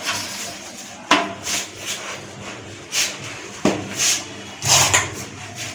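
A PVC pipe being pushed and worked into a heat-softened PVC pipe end by hand, giving irregular sharp knocks with short scraping rubs, about seven in all.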